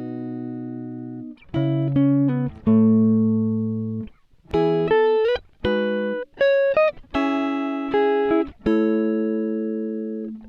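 Background music: plucked guitar playing a slow run of separate notes and chords, each left to ring.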